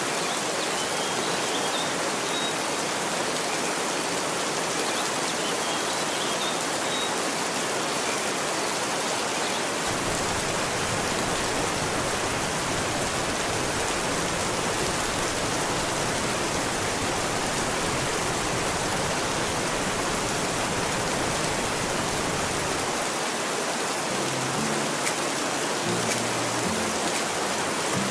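Steady rain falling, an even hiss. About ten seconds in a low rumble joins it for a while, and a few low tones sound near the end.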